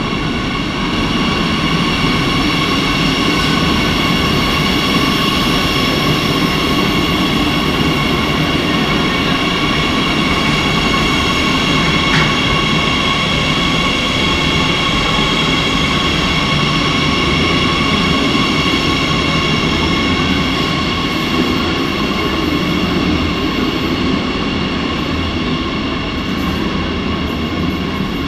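Madrid Metro series 8000 electric train running through an underground station without stopping: a loud, steady rumble of the cars over the rails with a high, steady multi-tone whine above it.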